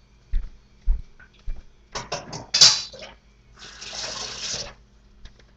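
A few soft thumps, then a quick cluster of knocks and clatter, then a kitchen tap running for about a second.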